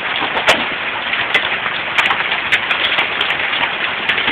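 Heavy downpour in a hail storm: a dense, steady hiss of rain with irregular sharp clicks of hailstones striking.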